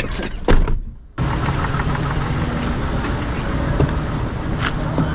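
Vehicle engine idling steadily, with a brief dropout about a second in.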